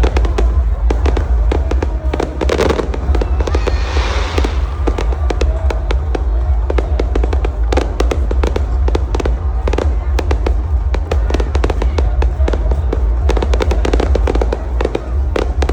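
Aerial fireworks going off in quick succession: a dense run of sharp bangs and crackles over a constant deep rumble, with a brief hissing crackle about four seconds in.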